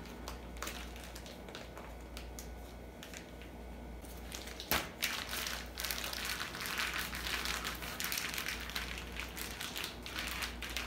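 Plastic zip-top freezer bag of raw chicken crinkling and rustling as hands press it flat on the table. Faint at first; a sharp click a little before halfway, then continuous crinkling.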